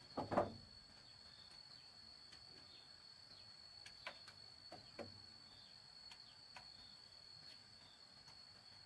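Insects chirring steadily on one high tone, with a few scattered short knocks, the loudest pair just after the start.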